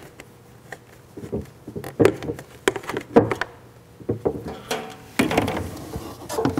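Scattered knocks, clicks and rustles of hands handling a water bucket, the submersible pump placed in it and its hoses, with a longer rustle of handling in the last second or so.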